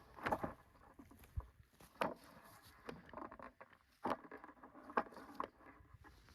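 Scattered rustling and light snapping of twigs and damp leaf litter being handled, with about six sharper clicks spread irregularly through it.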